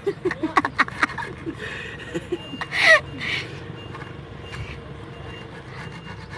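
Hacksaw blade rasping back and forth across a metal finger ring as it is sawn off. Short chuckling voices come in the first second or so, and a voice cries out about three seconds in.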